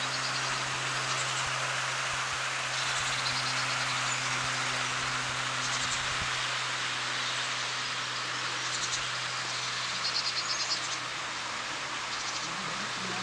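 00-scale model trains running on a garden layout: a steady rolling whir of wheels on track over a low steady hum, with short high trills every couple of seconds.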